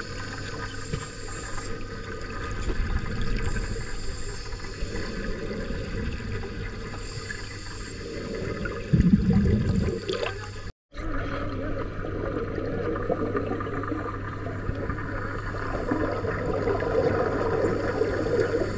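Underwater recording of scuba divers breathing through their regulators: exhaled air bubbling and gurgling, heard muffled underwater. There is a louder stretch about nine seconds in, and the sound drops out for a moment just before eleven seconds.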